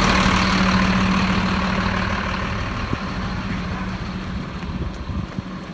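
Flatbed recovery truck's engine idling with a steady hum, growing gradually quieter.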